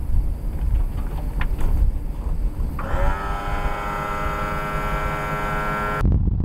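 Electric liftgate pump motor on a box truck: a whine that rises in pitch as it spins up about three seconds in, then holds one steady pitch for about three seconds until it cuts off. After that comes the low rumble of the truck driving, heard inside the cab.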